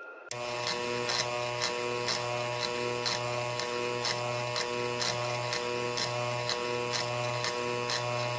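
Buzzing electronic drone held on one chord, with a ticking beat about two and a half times a second, starting suddenly just after the start.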